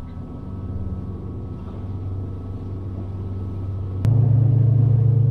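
Outboard motor running under way, heard from inside a small boat's pilothouse as a steady low drone. About four seconds in there is a click and the drone abruptly becomes much louder.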